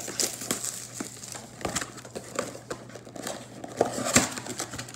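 Plastic trading-card pack wrappers crinkling as they are handled, with irregular sharp clicks and crackles, the loudest about four seconds in.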